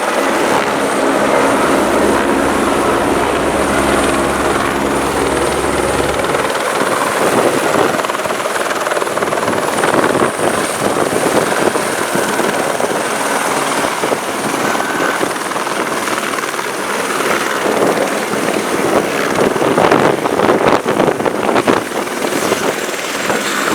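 Helicopter running close by as it comes in to land: a steady rotor beat with a thin high whine above it. The deepest part of the rotor sound drops away about six seconds in.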